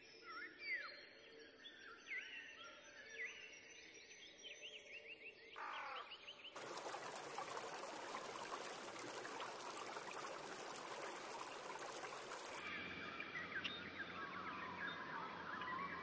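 Small songbirds chirping and singing in quick rising and falling whistled notes. About six and a half seconds in, the sound cuts abruptly to a dense, hissy wash of many overlapping calls. About thirteen seconds in, it cuts back to scattered chirps.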